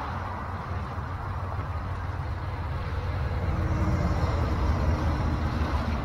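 A passing motor engine: a low rumble with a faint hum that swells about three to five seconds in, then eases.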